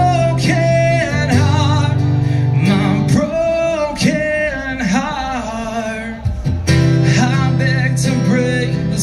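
Live rock song over a PA: a man singing over a strummed acoustic guitar and a full band with drums.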